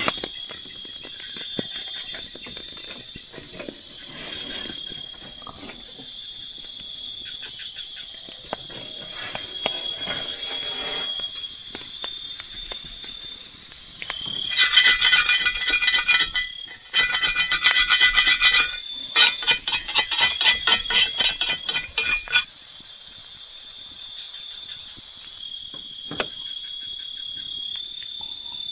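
Night insects, crickets among them, chirring steadily and high-pitched. About halfway through, a much louder pulsing call joins for roughly eight seconds, then stops.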